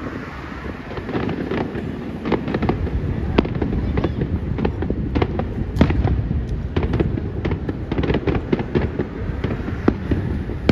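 Aerial fireworks shells bursting: a rapid, irregular string of sharp bangs and crackles over a continuous low rumble of reports and their echoes, growing louder about a second in.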